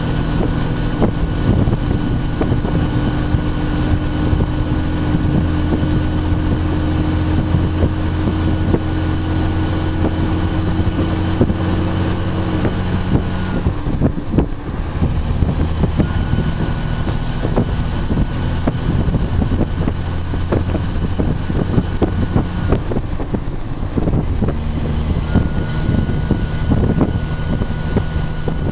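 Diesel engine of a Kenworth logging truck running under a full load of logs. Its steady low note breaks off twice, about halfway through and again near the end, and comes back each time at a different pitch.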